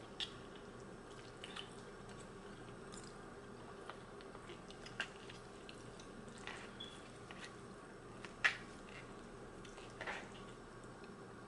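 A person eating pasta close to the microphone: soft chewing with a few sharp mouth smacks and fork clicks against a paper bowl, the loudest about eight and a half seconds in, over a faint steady hum.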